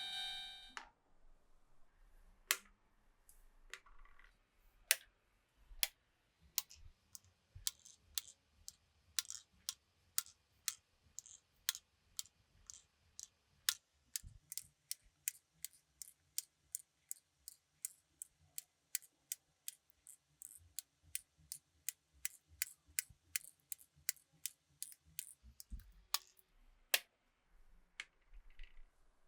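Glass marbles running down a marble run: a long string of sharp clicks as they strike the track pieces and each other, sparse at first, then about three a second, with a low rolling rumble through the middle that stops a few seconds before the end. A steady ringing tone cuts off just after the start.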